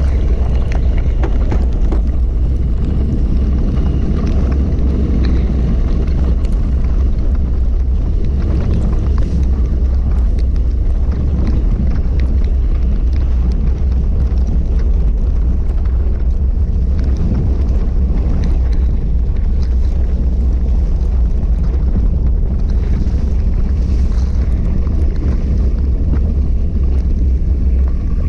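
Steady, loud wind buffeting on the microphone of a bike-mounted camera at racing speed, a deep rumble with no break. Under it is a hiss from bicycle tyres on wet pavement and mud.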